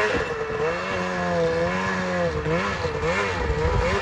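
Ski-Doo 600RS snowmobile's two-stroke engine revving up and down, its pitch rising and falling again and again as the throttle is worked.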